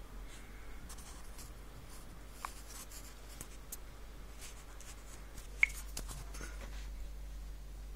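Faint scattered clicks and rustling over a steady low hum, with one sharp click about five and a half seconds in.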